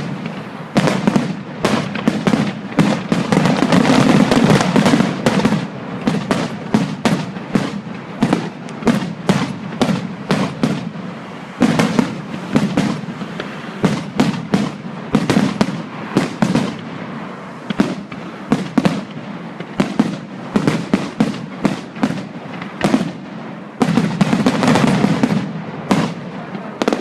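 Fireworks display: rapid, dense volleys of bangs and crackles all the way through, thickest a few seconds in, about twelve seconds in, and near the end.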